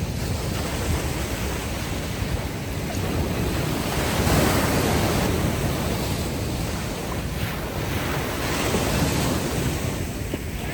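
Ocean waves washing ashore on a beach: steady surf with a louder surge about four seconds in and a smaller one around nine seconds.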